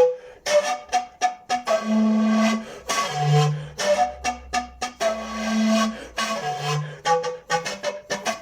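Siku (Andean panpipe) playing a melody in held, breathy notes over a quick, rhythmic instrumental accompaniment.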